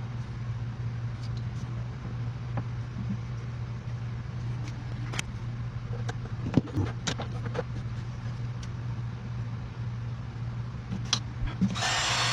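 Scattered small clicks and taps from handling wires and tools over a steady low hum, then a heat gun switches on near the end with a steady loud blowing hiss, used to shrink heat-shrink tubing over a soldered wire splice.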